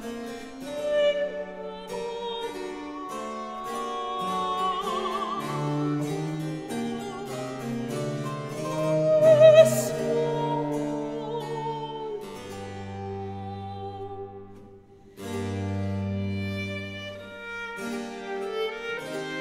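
Background classical-style music: a melody held with vibrato over an accompaniment of changing notes. The music dips almost to nothing for a moment about fifteen seconds in.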